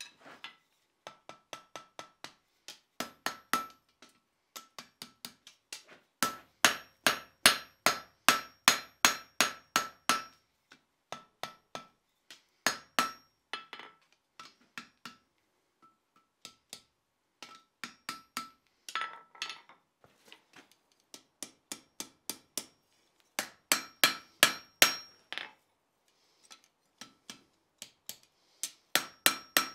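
Hand hammer striking hot steel on an anvil as a ram's horn scroll is forged into a hook. The blows come in quick runs broken by short pauses, and each blow rings with a clear metallic tone.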